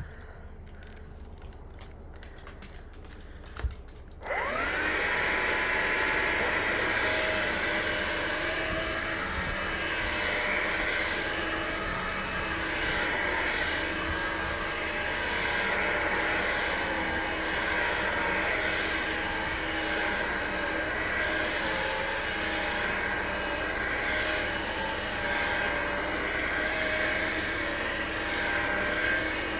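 Hoover Linx cordless stick vacuum switched on with a click about four seconds in; its motor spins up with a rising whine and then runs steadily, its pitch wavering up and down. The owner says its battery is shot, and that the motor sounds kind of bad.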